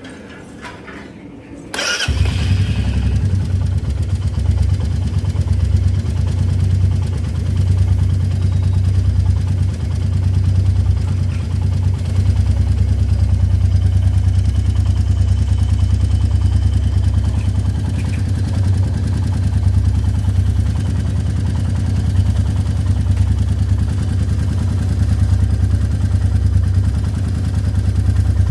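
Royal Enfield Meteor 350's single-cylinder engine starting about two seconds in, then idling steadily. It carries the tappet noise that the owner hears after 10,000 km.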